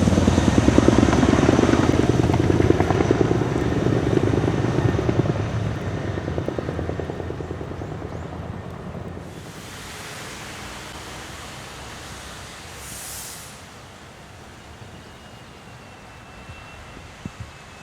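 JASDF CH-47J Chinook tandem-rotor helicopter's blade chop, a fast, even throbbing pulse that fades away over the first several seconds. Afterwards only faint background noise remains, with a brief hiss about thirteen seconds in.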